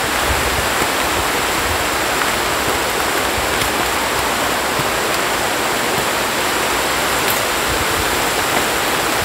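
Heavy rain pouring down steadily, an even hiss with no let-up.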